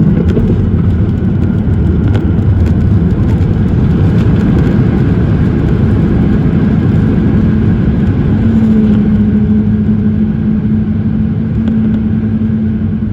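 Loud cabin roar of a Boeing 737-800 during landing, its CFM56 engines and rushing air making a dense, steady low noise. A steady hum tone joins in about two-thirds of the way through.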